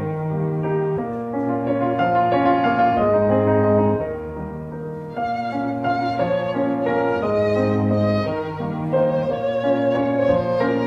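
Instrumental music: a slow melody of held notes on violin over piano, the violin notes wavering with vibrato in the second half.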